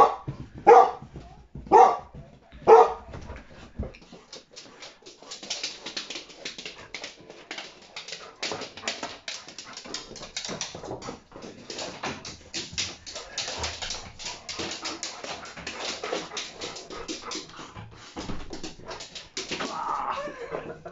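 Dog barking four times, single loud barks about a second apart. Then a long dense clatter of clicks and scuffling, with the dog whimpering near the end as it greets someone.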